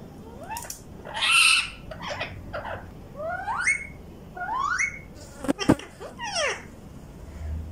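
Caged ring-necked parakeets, an Indian ringneck and an Alexandrine, calling in a run of short squeaky notes that rise in pitch. One harsher, noisy screech comes about a second in, and a sharp click comes past the middle.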